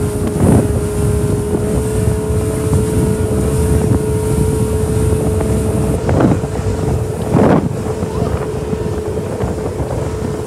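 Motorboat underway at speed: a steady engine drone with one constant whine over heavy wind on the microphone. The hull slaps into the chop a few times, loudest about seven seconds in.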